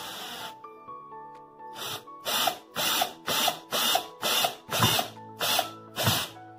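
Einhell TE-CD 18/2 Li cordless drill driver driving a screw into a wooden block: a steady run that stops about half a second in, then about nine short trigger pulses, roughly two a second, the motor spinning up at each one.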